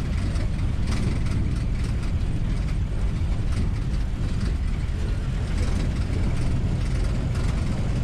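Open safari canter, a truck-based open bus, driving along a dirt track: a steady engine drone with short knocks and rattles from the body throughout.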